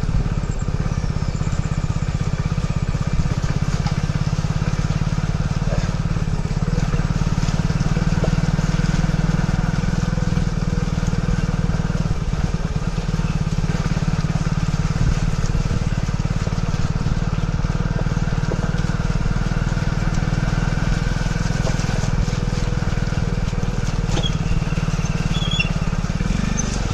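Motorcycle engine running steadily at low speed, its low drone unchanged throughout.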